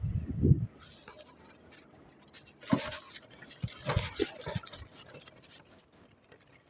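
Scratchy rustling and scraping close to the microphone, with scattered clicks, a few dull knocks near the start and louder bursts around three and four seconds in.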